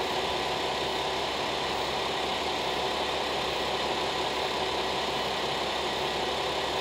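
Diesel engine of a JR West KiHa 47 railcar idling steadily while it stands at the platform.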